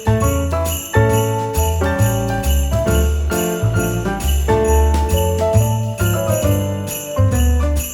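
Christmas background music: sleigh bells jingling on a steady beat over a bass line and a bright melody.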